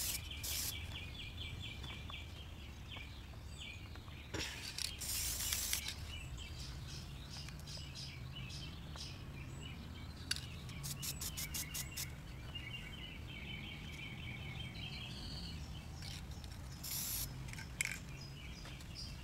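Aerosol spray-paint can hissing in short bursts as paint is dusted on through a stencil: a longer burst about four to six seconds in and another near the end. Birds chirp and trill in the background, and a quick run of clicks comes about eleven seconds in.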